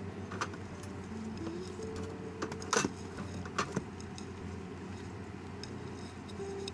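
A few light clicks and knocks, the loudest about three seconds in, as a kitten paws at a wooden silvervine stick on the carpeted base of a cat tree in a wire cage. Faint background music plays underneath.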